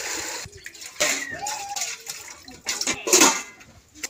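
Water splashing and sloshing as hands scrub in a metal cooking pot full of water, with a louder splash or clatter about three seconds in.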